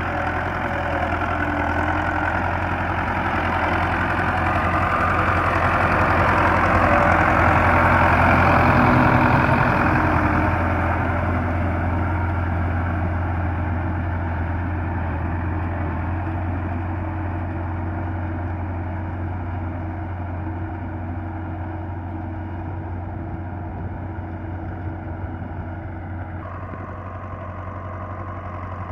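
Belarus 510 tractor's diesel engine running steadily under load as it pulls a cultivator through a flooded rice paddy. It grows louder as the tractor passes close, about a third of the way through, then fades as it moves away.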